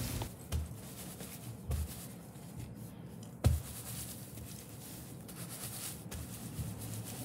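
Hands rubbing dry-roasted peanuts inside a cotton towel, a soft scratchy rubbing of cloth and nuts that loosens their papery skins. A few short thumps come through, the loudest about three and a half seconds in.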